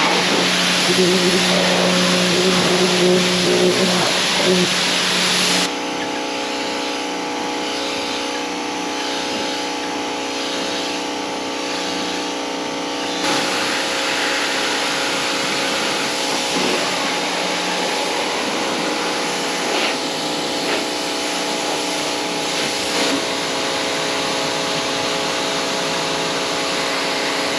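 Pressure washer running and spraying: a steady motor hum under a loud hiss of water spray. The hum and spray change abruptly about six and thirteen seconds in.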